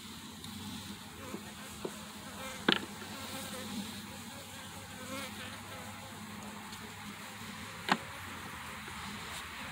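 Honeybees buzzing steadily around an opened hive, with two sharp knocks a few seconds apart.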